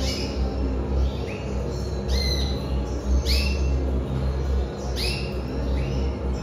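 Red mosaic canaries calling: short up-swept chirps repeated about once a second, over a steady low hum.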